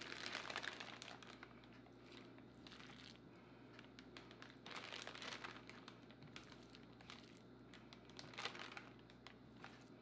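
Ziploc plastic bag crinkling in several short bursts as handfuls of marinated chicken are stuffed into it. The first burst is the loudest.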